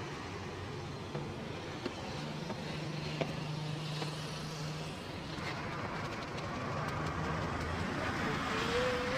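Steady street traffic noise, with a low engine hum from a passing vehicle for a few seconds and a few faint clicks.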